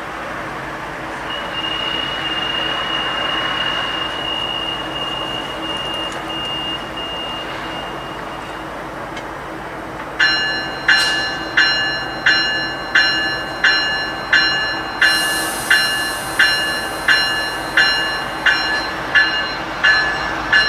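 Steady hum of a Metrolink train idling at the platform, with a thin high whine over it for several seconds. About halfway through, a railway warning bell starts dinging steadily, about one and a half strikes a second, and a high hiss of air joins a few seconds later.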